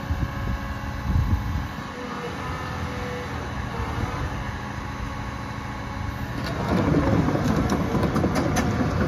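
Caterpillar tracked hydraulic excavator running, its diesel engine a steady low hum while the steel crawler tracks clank and squeak as it travels. The track noise grows louder, with many sharp clicks and squeaks, over the last few seconds.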